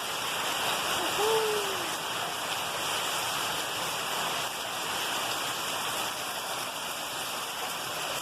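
Rain falling steadily, an even hiss. About a second in there is one short call that rises and then falls in pitch.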